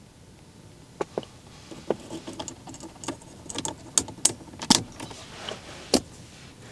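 Plastic climate-control knob being worked onto its spindle on a Range Rover Sport's dashboard: a string of sharp clicks and taps starting about a second in, loudest between four and six seconds in.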